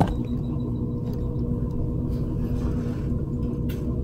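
A steady low rumble with a constant hum, and a brief click right at the start.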